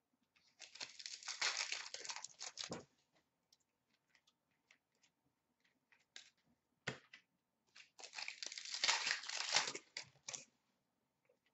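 Hockey card pack wrappers being torn open and crinkled in two bursts, about half a second in and again near eight seconds, with a few light card clicks and taps between.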